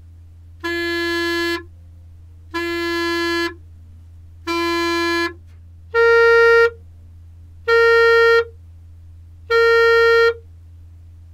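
Clarinet playing six separate held notes, each just under a second long with about a second between them: three on a lower pitch, then three on a higher pitch and louder. Each note is cut off cleanly by the tongue closing onto the reed, with no leftover noise after it, in a demonstration of short tonguing.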